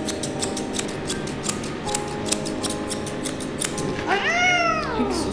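Grooming scissors snipping a cat's fur in quick repeated cuts. About four seconds in, the cat gives one drawn-out meow that rises and then falls.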